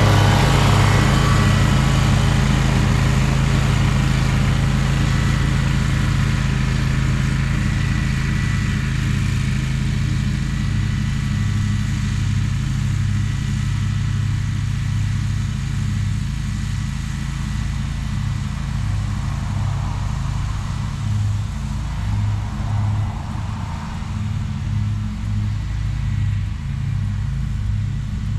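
Scag Tiger Cat zero-turn mower running steadily while cutting grass, its engine sound fading gradually as the mower moves off across the lawn.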